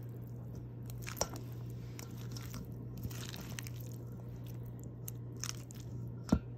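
Spatula stirring cooked orzo pasta: soft squishing and scraping, with a few light clicks and a sharp knock near the end, over a steady low hum.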